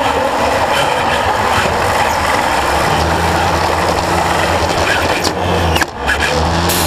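A FIRST Robotics Competition robot running, heard from a camera mounted on it: dense mechanical noise and rattle. A low steady hum comes in about three seconds in, with a brief drop in the noise about six seconds in.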